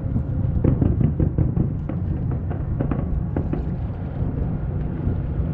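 Fireworks going off in quick succession: a steady series of sharp bangs and pops, about two or three a second, over a low rumble.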